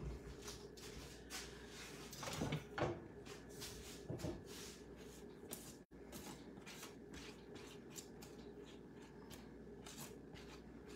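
Wooden spoon scraping and knocking in a Pampered Chef Sauté & Steam Pan as noodles and shrimp are pushed off the steamer basket and stirred. Light scraping and clicking throughout, with louder clatters about two to three seconds in and again around four seconds.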